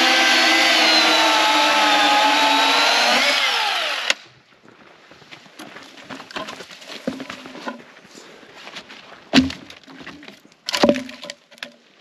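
Chainsaw cutting through a fallen log, its engine pitch sagging under load and then winding down before it stops about four seconds in. After that come scattered wooden knocks and two heavier thumps near the end.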